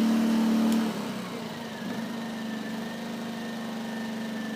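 Small portable generator engine running steadily; about a second in its loud, steady hum drops sharply to a quieter idle, the engine settling down once the breaker has been switched off and the load removed.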